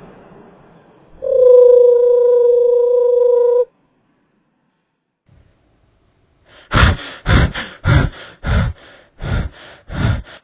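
Cartoon sound effects for a flying saucer arriving: a steady held tone for about two and a half seconds, then after a pause a quick run of about ten pulses, roughly three a second, as the saucer comes down.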